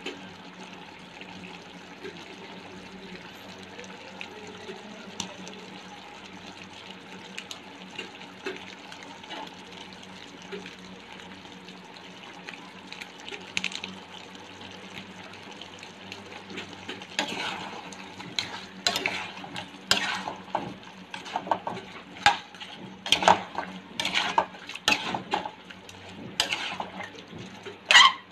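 Chicken in oyster sauce simmering in a metal pan with a steady, faintly crackling sizzle. From a little past halfway, a metal utensil scrapes and clanks against the pan in quick, uneven strokes as the chicken is stirred; these strokes are the loudest sounds.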